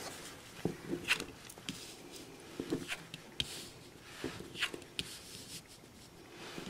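Tarot cards being handled and turned face up on a reading mat: a scattering of soft taps and rustles as each card is flipped and set down.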